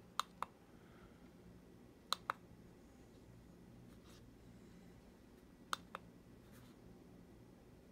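Three pairs of short, sharp plastic clicks a couple of seconds apart: the push button on a moon lamp's base being pressed and released to cycle through its colours. A faint steady hum runs underneath.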